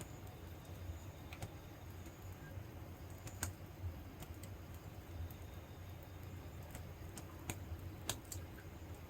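Wood fire crackling in a fire pit: irregular, sparse sharp pops over a low steady hum.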